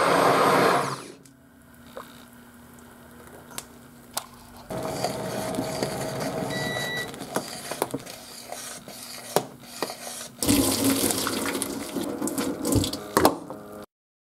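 Immersion (stick) blender whirring in a pot of thick curry sauce, stopping abruptly about a second in. A faint steady hum follows, then a ladle stirring the thick sauce in the stainless pot with wet sloshing, scrapes and sharp clinks against the metal, busiest in the last few seconds before the sound cuts off.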